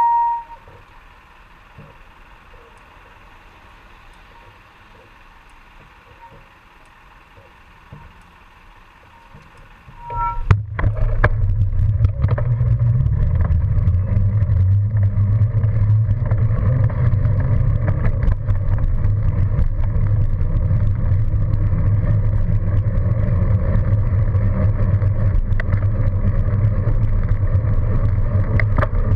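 A short beep right at the start, then low street background for about ten seconds. About ten and a half seconds in comes a sharp click, then a loud, steady low rumble of wind and road noise on a bicycle-mounted camera's microphone as the bike rides along the street.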